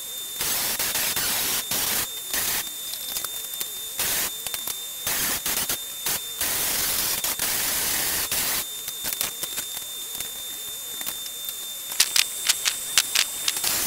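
Cordless reciprocating saw with a fine blade cutting rebond seat foam in several short bursts, a hissing rasp, the longest about two seconds. A quick run of sharp clicks follows near the end.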